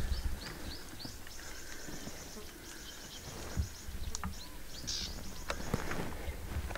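Footsteps and the rustle of tall reeds and grass brushing against people walking through a reed bed, with scattered snaps and knocks. A bird calls over it: a few short rising chirps, then a fast high trill lasting a few seconds.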